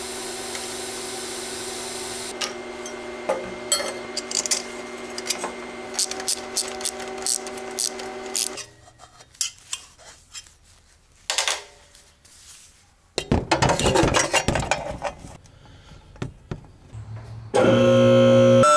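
TIG welding arc buzzing steadily for the first eight or so seconds, with sharp clicks over it, then cutting off. Clinks, taps and rattles of metal tube and turbo parts being handled follow. Near the end, a two-post vehicle lift's electric pump motor starts with a loud steady hum.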